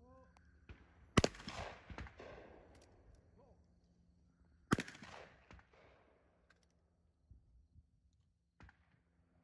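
Two gunshots about three and a half seconds apart, each followed by a trailing echo.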